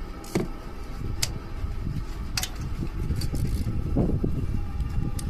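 Mercedes-Benz E300 engine running with an uneven low rumble, the engine that is logging a cylinder-one misfire. A few sharp clicks sound over it in the first half.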